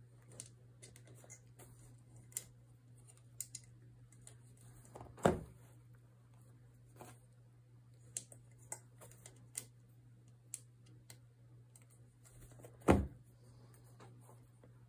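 Scattered light clicks and taps of hands working loops on the pegs of a potholder weaving loom, with two louder knocks, about five seconds in and again near the end, over a faint steady low hum.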